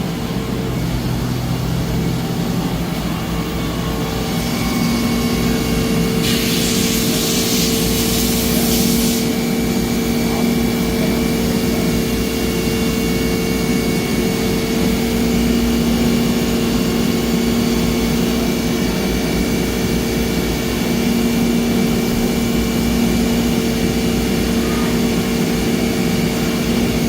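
Traub TNL 26 CNC Swiss-type lathe running its warm-up program, which moves all the axes: a steady machine drone, with a steady whine coming in about four seconds in. About six seconds in there is a hiss that lasts about three seconds.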